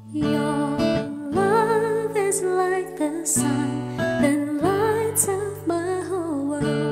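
A solo voice singing a slow ballad with vibrato over acoustic guitar accompaniment. The music comes in just after the start.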